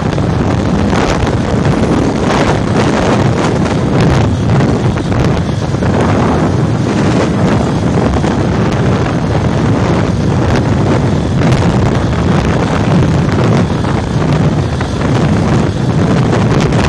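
Heavy wind buffeting the microphone of a moving motorcycle, with the motorcycle's engine running steadily underneath.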